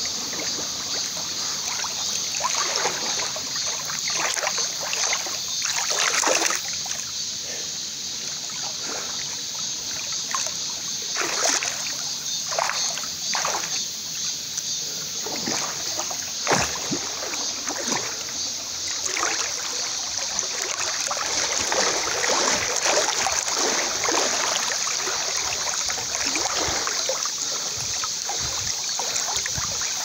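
Water sloshing and splashing right at the microphone as a swimmer kicks with fins at the surface, in uneven strokes. Under it runs the steady rush of a small waterfall pouring into the pool.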